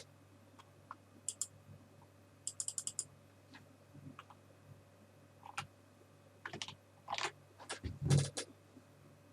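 Computer keyboard typing and clicking in scattered short runs, with a quick run of about six keystrokes about two and a half seconds in and a denser, louder cluster near the end, over a faint steady hum.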